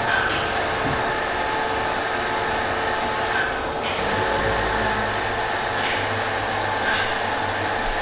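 Steady mechanical noise of an engine repair workshop, with a few light knocks and a low rumble that sets in about halfway through.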